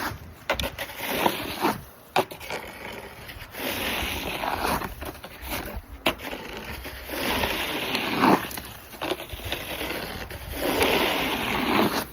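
Snow shovel scraping and pushing wet slush across a driveway: several long scraping strokes, with a few sharp knocks of the blade in the first couple of seconds.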